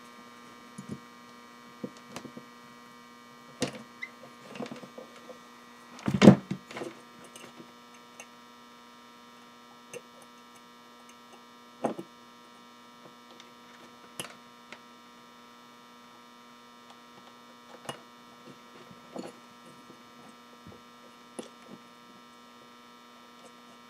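Hands working solid-core wire and needle-nose pliers on a workbench make scattered light clicks and taps, with the loudest knock about six seconds in. Under them runs a steady electrical hum.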